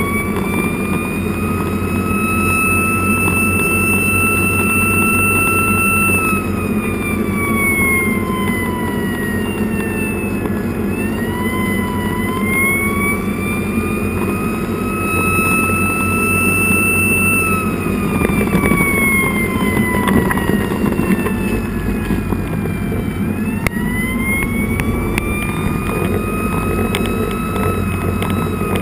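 Fire engine's siren on a slow wail, sweeping up, holding and falling about every eleven seconds, over the steady run of the truck's engine and road noise, heard from inside the cab.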